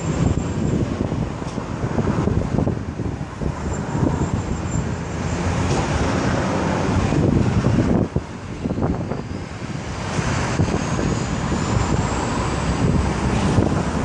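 Steady road traffic noise from a busy highway, with wind buffeting the microphone in gusts. A faint rising whine comes through near the end.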